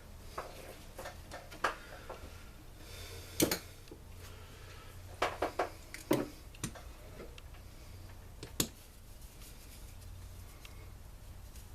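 Scattered sharp clicks and knocks of hand tools and plastic and metal parts being handled while a backpack blower is taken apart, with a cluster of quick knocks about five to six seconds in.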